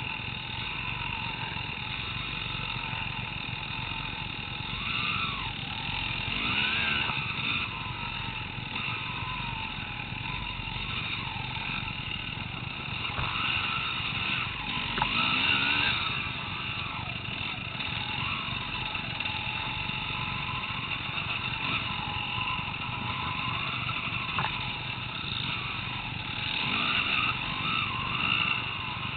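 Enduro dirt bike engines running on the move, the revs repeatedly rising and falling as the throttle is worked, with louder bursts about a quarter of the way in, around the middle and near the end.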